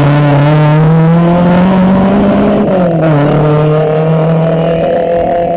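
Rally car engine accelerating hard, its note climbing steadily, then dropping about two and a half seconds in and holding level.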